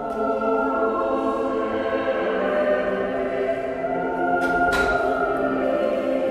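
Choir singing a sustained liturgical chant, with held notes that shift pitch slowly. A brief noisy rustle or breath-like burst sounds about four and a half seconds in.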